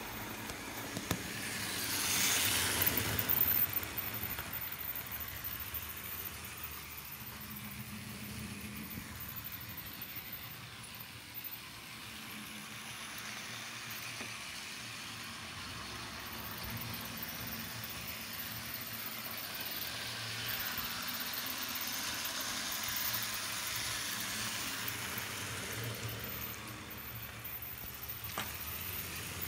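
TT-scale model train running on the layout: the small locomotive motor and wheels on the rails give a continuous whirring hiss. It grows louder about two seconds in and again from about twenty seconds in, as the train passes close.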